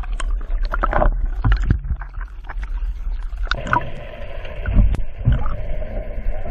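Water sloshing and gurgling against a GoPro in its waterproof housing as it is moved through the sea surface, with many sharp clicks and low knocks. A steady hum comes in about halfway through.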